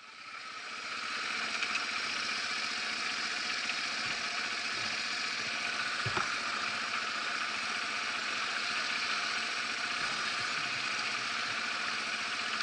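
Yamaha TW200's single-cylinder four-stroke engine idling steadily, with one sharp knock about six seconds in.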